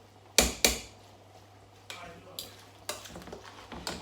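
A cooking utensil knocking against a pot while spaghetti is stirred: two loud sharp clinks about half a second in, then a few lighter knocks.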